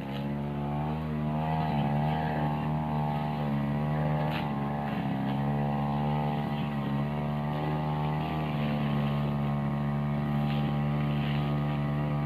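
Backpack brush cutter's small petrol engine running at high speed, its pitch wavering up and down as the blade swings through grass, vines and woody undergrowth. A brief sharp knock about four seconds in.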